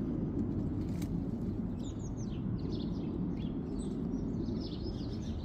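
Many short, high bird chirps, coming thick and fast from about two seconds in, over a steady low outdoor rumble.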